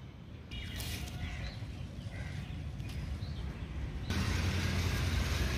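Wind rumbling on the microphone, with faint bird chirps in the background. About four seconds in, the sound switches abruptly to a louder, steady windy hiss.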